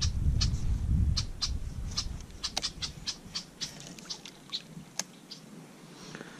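A small largemouth bass splashing at the surface and dripping as it is reeled to the kayak and lifted out. The sound is a run of sharp, irregular clicks and small splashes, with wind rumbling on the microphone in the first second.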